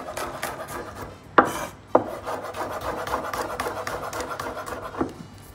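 Kitchen knife slicing garlic cloves on a wooden chopping board: quick, even taps about four or five a second, with louder knocks about a second and a half and two seconds in and again near the end.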